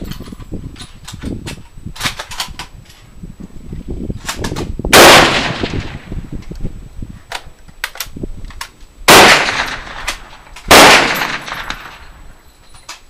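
Rifle shots on a firing line of vintage military rifles. One loud shot comes about five seconds in and two more come about two seconds apart later on, each with a short echo. Fainter cracks and clicks fall in between.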